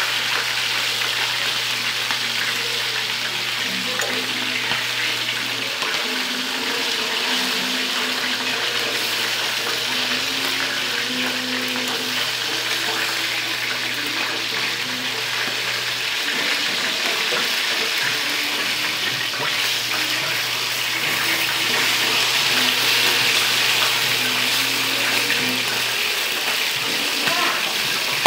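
Chicken pieces frying in oil in a pan: a steady, dense sizzle that grows a little louder about three-quarters of the way through.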